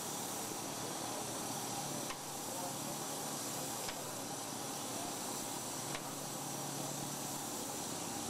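A steady, even hiss with three faint clicks about two seconds apart.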